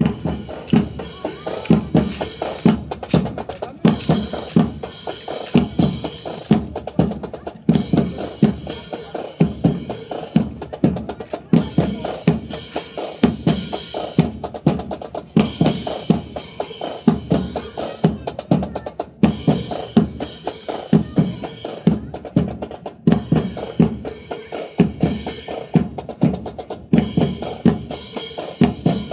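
Drum cadence of snare and bass drum beating a steady, regular rhythm with rim clicks and short rolls.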